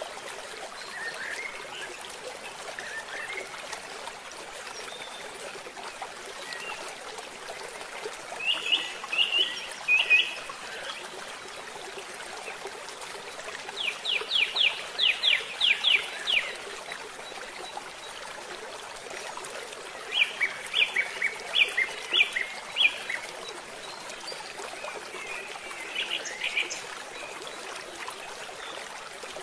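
Steady rush of a shallow river flowing past, with a bird calling over it in four bouts of short, high chirps, the longest run a quick series of about a dozen notes near the middle.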